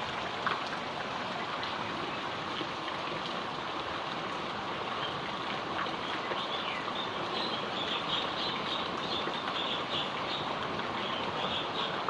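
Heavy rain falling steadily, a constant even hiss. From about six seconds in a run of short, high chirps sounds over it for several seconds.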